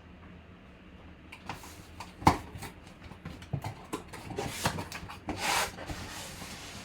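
Sealed box packaging being handled: scattered clicks and knocks, one sharp click about two seconds in, and a short rasping rustle about five and a half seconds in.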